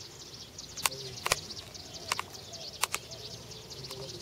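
Many small birds chirping together in a steady dawn chorus, with about six sharp clicks, some in quick pairs, standing out above it.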